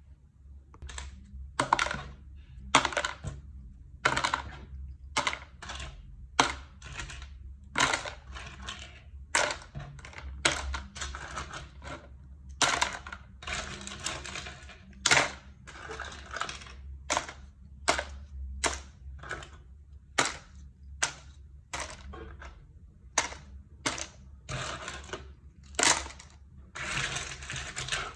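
Hard plastic letter-shaped sand moulds clattering as they are dropped one by one into a plastic tub, a sharp clack every second or so, with a few longer rattles as several land together.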